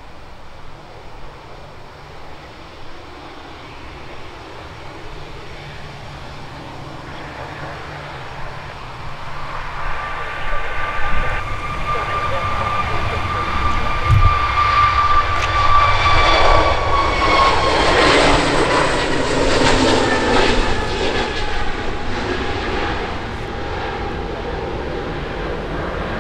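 An airliner's engines passing close by. The steady high whine and rumble grow louder for the first half, then the whine drops in pitch as the aircraft goes past and the sound eases off.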